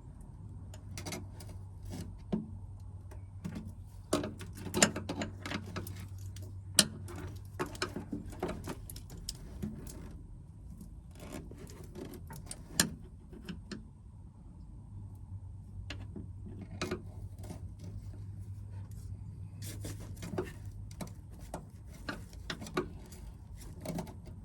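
Scattered clicks, knocks and rubbing as the old wiring harness is handled and worked loose, wires and plastic connectors scraping and tapping. A low steady hum runs for several seconds near the start and again past the middle.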